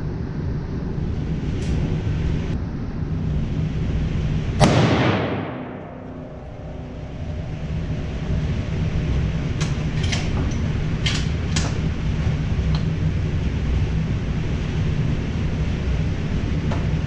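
A single loud gunshot about five seconds in, ringing and fading for about a second, followed by a few quieter sharp cracks or clicks. A steady low rumble runs underneath.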